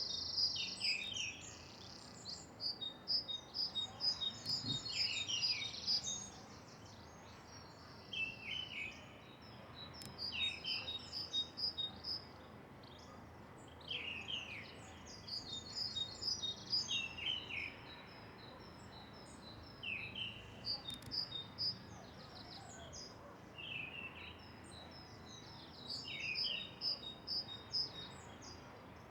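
Songbirds singing and chirping, in phrases that come back every two to three seconds. Each phrase has a quick run of high notes and a few short downward-sliding whistles. A steady low outdoor background noise runs between the phrases.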